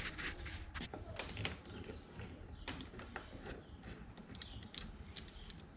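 Irregular light clicks and small knocks of hand work on a small engine as a stuck part is worked loose.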